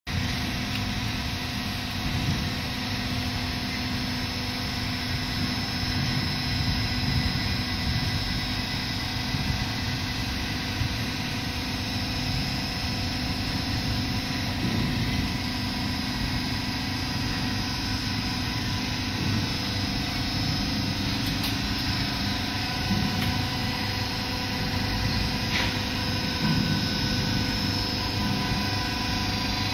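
Hydraulic power pack of a 200-ton pillar-type hydraulic press: its electric motor and pump running with a steady hum.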